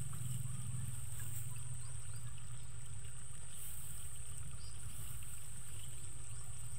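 Faint rustles and snips of rice stalks being gathered and cut by hand with a small sickle, over a steady low rumble and a steady high hiss.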